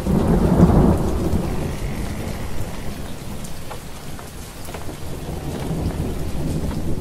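Steady rain with rolling thunder: a low rumble swells in the first second and again toward the end, over a constant hiss of rain with scattered drop ticks.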